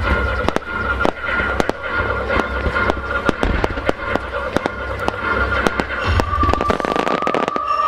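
Fireworks starmine bursting in rapid succession: a quick run of sharp bangs over a deep rumble of shells. A thick burst of crackling comes near the end.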